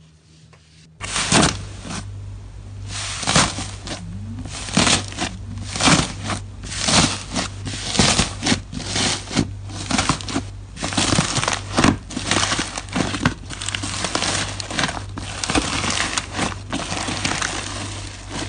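Hands pressing, squeezing and stretching a tray of powder-dusted fluffy slime, giving crunchy, crackling squishes with each press. It starts about a second in as separate presses, one or two a second, and turns into denser, continuous crackling later on.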